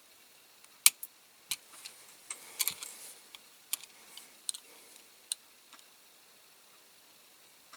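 Scattered light clicks and taps of small tools and parts being handled on a workbench, loudest about a second in, with a quick cluster a little later and nothing after about five seconds.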